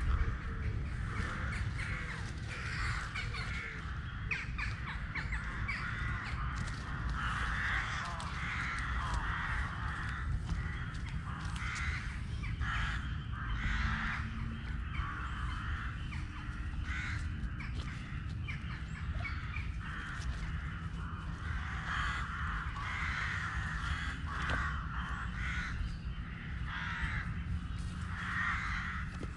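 Short, harsh animal calls repeating about once or twice a second throughout, over a steady low rumble.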